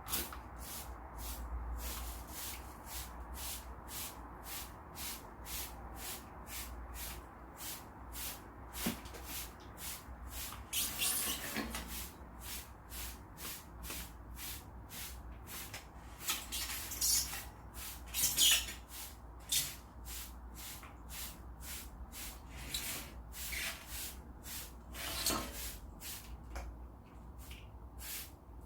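Rhythmic hissy rubbing strokes, about two a second, with a few louder bursts of strokes along the way.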